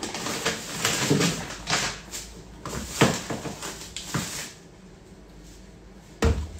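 Off-camera rummaging for a plastic bag of whey protein: a run of knocks, clatter and rustling for about four seconds, then a pause and a heavier thump near the end as the bag is handled close by.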